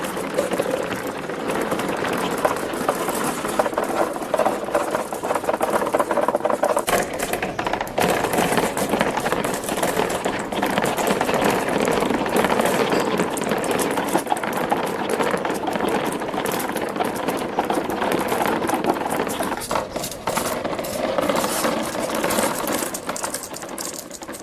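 Many marbles rolling and clattering along plastic marble-run tracks, a steady dense rattle of small hard clicks.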